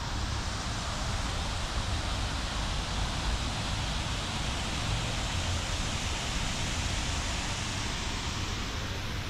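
Steady rushing hiss of a park fountain's spray, a little fuller around the middle, over a low fluttering rumble of wind on the microphone.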